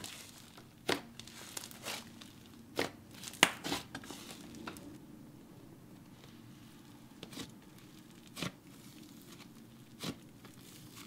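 A smooth clay-butter slime being stretched and kneaded by hand, giving scattered sticky crackles and pops. These come thick in the first few seconds, then only now and then as it is pressed into its tub.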